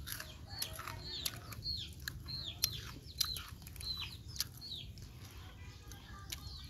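Chickens peeping: short, high chirps that fall in pitch, repeating several times a second, with scattered sharp clicks among them.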